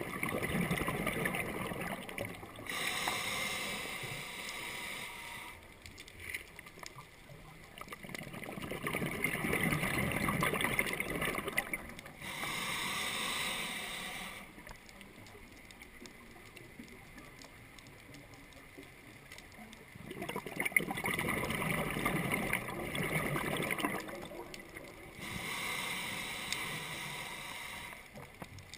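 A scuba diver breathing through a regulator underwater: bursts of rumbling exhaled bubbles alternating with the hiss of air drawn through the regulator, three breaths in all with a longer pause in the middle.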